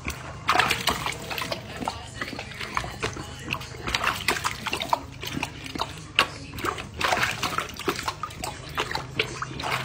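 A dog pawing and splashing water in a stainless steel bowl: many irregular sloshes and splashes.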